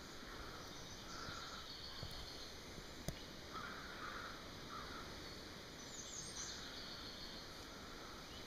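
Faint outdoor background noise with a few soft, short bird calls and a single small click about three seconds in.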